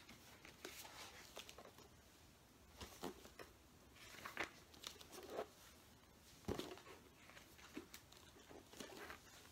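Faint rustling of a hardcover book's paper pages being leafed through and handled, in short irregular flicks, a few a little louder about three, four and a half and six and a half seconds in.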